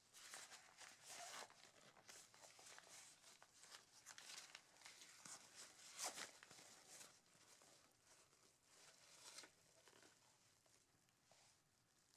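Faint nylon rustling and scraping from an Arc'teryx Maka 2 waist pack as hands pull open and rummage in its main compartment, in irregular short scrapes, the loudest about six seconds in.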